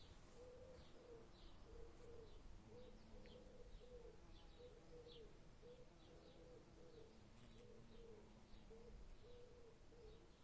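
Faint cooing of a dove: a long run of short low notes, about two a second. Small birds chirp briefly and thinly now and then.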